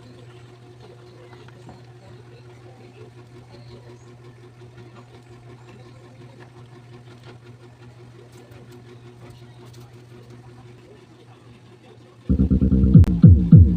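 A steady low hum, then about twelve seconds in a Crown EW-520 speaker in a sub box starts playing loud, bass-heavy music, with only the low end and nothing in the upper range, as in a subwoofer sound check.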